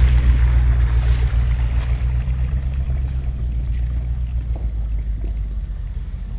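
An off-road 4x4's engine running with a deep, steady rumble. A rushing hiss dies away over the first two seconds, and the whole sound slowly grows quieter.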